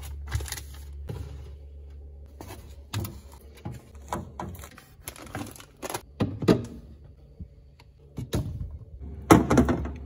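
Food containers and items knocking and clattering as they are handled and set down in a refrigerator, scattered thunks with a louder cluster near the end, over a steady low hum.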